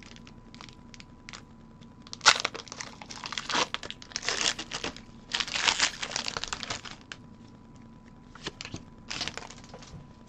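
A foil Pokémon card booster pack wrapper being torn open and crinkled, in several rustling bursts starting about two seconds in, with a last short burst near the end.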